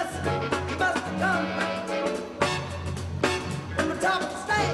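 Upbeat dance music with a steady drum beat and a bass line.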